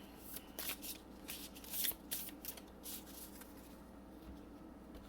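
Wild Unknown Pocket Tarot cards being shuffled and handled: a quick run of soft flicks and slaps over the first couple of seconds, then quieter rustling as a card is drawn.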